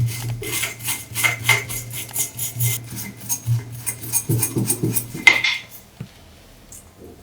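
Metal scraping and clinking on metal in rapid, irregular strokes over a low steady hum, all stopping about six seconds in.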